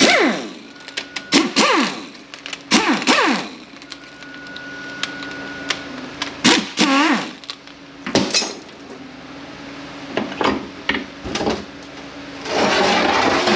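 Handheld power tool run in about five short bursts, each winding down in pitch, spinning out the 10 mm valve-body bolts of an A6LF2 automatic transmission. Clicks and clinks of bolts and tools come between the bursts, and a longer, noisier burst comes near the end.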